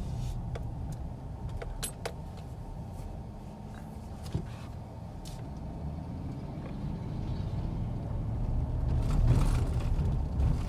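Car being driven, heard from inside the cabin: a steady low rumble of engine and tyres, with a few light clicks in the first seconds. It grows louder near the end.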